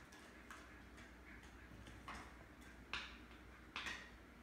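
Faint, irregular clicks: a Border Collie puppy chewing and gnawing on something. The two loudest clicks come about three seconds in and near the end.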